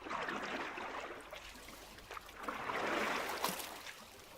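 Oar strokes through water: two swishing strokes, the second about halfway through.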